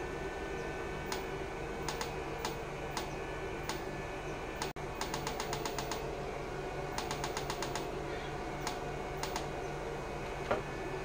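A series of sharp clicks over a steady low hum: a few single clicks, then two quick runs of about ten clicks a second, then scattered single clicks again.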